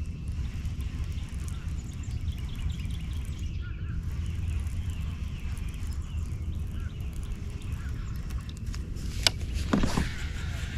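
Steady low wind rumble on the microphone with faint bird chirps. Near the end, a sharp click and a brief swish as a baitcasting rod and reel is cast.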